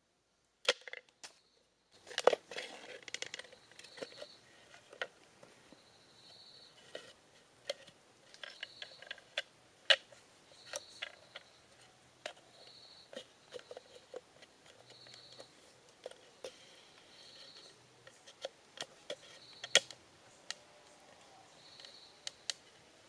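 Sharp, irregular wooden clicks and taps as carved wooden trigger pieces are slid into and knocked against a bamboo-tube trap. A faint high chirp repeats about once a second in the background.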